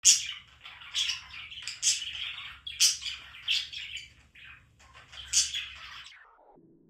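Pet budgie chirping and squawking: a busy run of sharp, loud calls over softer scratchy chatter, stopping about six seconds in. A short falling series of low tones follows near the end.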